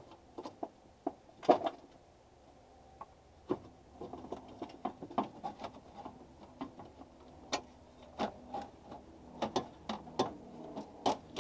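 Battery tray being worked loose and pulled out of a vehicle's engine bay: irregular clicks, knocks and scraping of the tray against surrounding parts.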